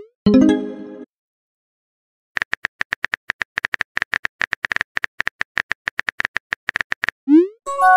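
Chat-app sound effects: a rising pop and a short chime as a message arrives, then a run of rapid keyboard typing clicks lasting about five seconds, then another rising pop with a held chime near the end as the next message is sent.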